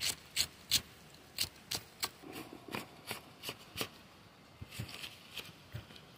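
Large steel knife chopping sliced onion on a wooden block: sharp, regular knocks about three a second, loud at first and fainter after about a second and a half.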